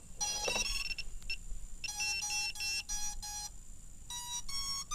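QAV-R 6-inch quadcopter's motors beeping their ESC power-up tones as the battery is connected, a sign that the ESCs have power. A short cluster of tones, then about five even beeps, then a few stepped tones near the end.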